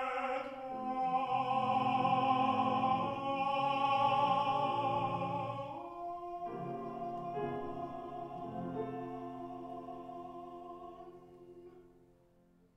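Baritone voice holding a long final note with vibrato over grand piano. About halfway through, the voice ends and the piano's closing chords ring on, growing softer and dying away at the end.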